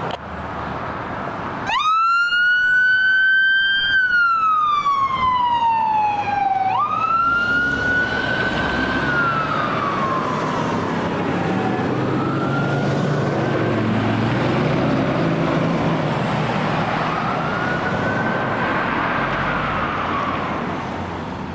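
Fire truck siren wailing close by. It starts suddenly about two seconds in, falls slowly in pitch, jumps back up, then keeps rising and falling more faintly as the vehicle moves off, with the truck's engine running underneath.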